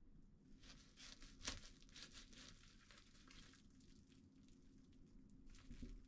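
Faint crinkling and rustling of plastic cling film as a wrapped, halved fruit sandwich is handled, with a sharp click about a second and a half in.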